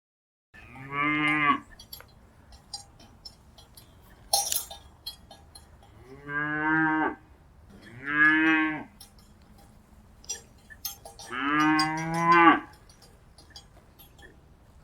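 Cattle mooing: four separate moos, the last one the longest. Light clinks and a brief sharp knock come between the calls.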